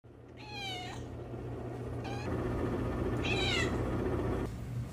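Domestic cat meowing: two meows that fall in pitch, about half a second in and about three seconds in, with a faint short one between them, over a steady low hum.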